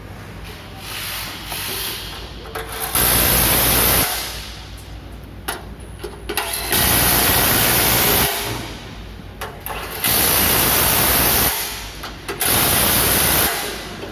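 Compressed-air tool on an excavator assembly line running in four loud bursts of one to one and a half seconds each, with short clicks and knocks in the gaps between.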